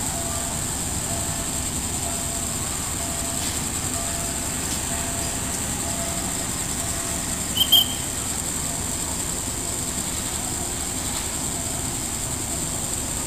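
Distant diesel train approaching a station, a steady low rumble, under a constant high-pitched hiss. About halfway through, one brief, sharp high squeak is the loudest sound.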